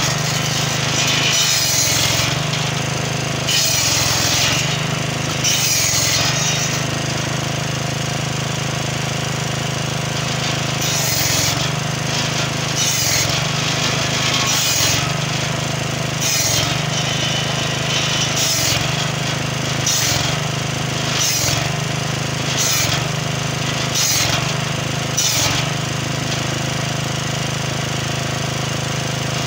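Small petrol engine driving a circular saw bench runs steadily while the spinning blade cuts through black locust logs. The cuts come as a quick run of short high rasps, often one to two seconds apart, with a pause of a few seconds about a quarter of the way in.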